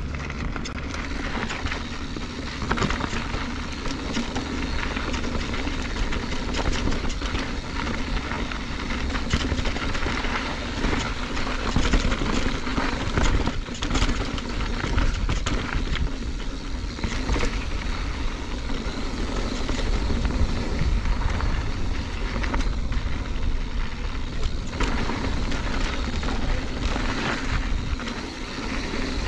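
Mountain bike descending a bike-park trail: wind rushing over the microphone and a low rumble of tyres on dirt, with frequent rattles and knocks from the bike over rough ground.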